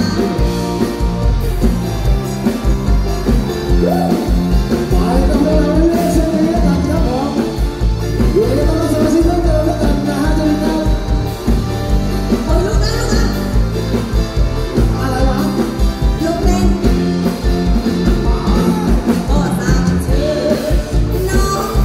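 Live band playing with a steady drum beat while a woman sings into a microphone, amplified through the stage sound system.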